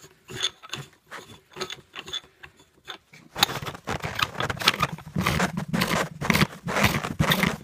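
A paintball marker's barrel being screwed in by hand: light scattered ticks at first, then from about three seconds in a dense, louder run of scraping and rubbing close to the microphone.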